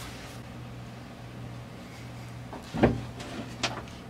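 A few light clicks and a sharp knock near the end, from the power window switch and wiring inside the car door being handled, over a low steady hum.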